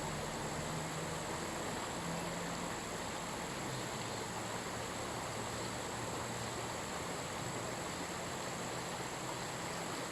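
River water flowing steadily, a constant rushing hiss with no breaks, under a steady high buzz of insects.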